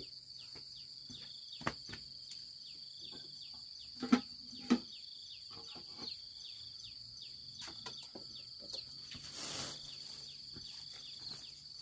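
Outdoor rural ambience: insects buzzing steadily at a high pitch and a bird giving short, repeated chirps. A few sharp knocks from handling cookware, the loudest two about four seconds in, and a brief rush of noise near the end.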